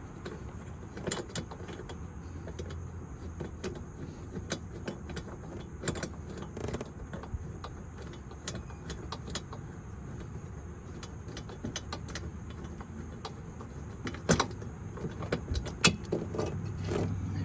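Irregular small clicks, taps and clinks of parts being worked loose by hand around a car's headlight mounting, with two sharper knocks near the end, over a steady low hum.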